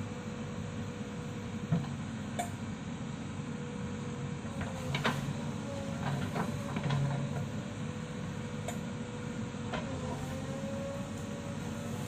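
JCB backhoe loader's diesel engine running steadily as the backhoe arm works, its pitch sagging briefly a few times under load. Several sharp metallic clanks from the bucket and boom linkage.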